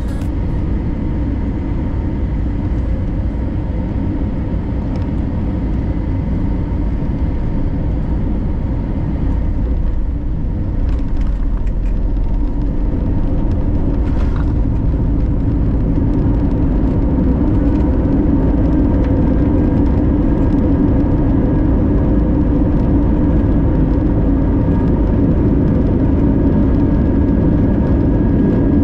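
Cabin noise of an Airbus A321 airliner landing, heard from a window seat by the wing: a steady engine and airflow rumble with a few short knocks about eleven to fourteen seconds in as the wheels touch down. The rumble grows louder during the rollout on the runway.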